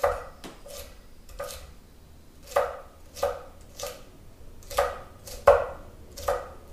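Chef's knife chopping carrot into small dice on a wooden cutting board: about a dozen separate knife strikes at an uneven pace, with a short pause about a second and a half in.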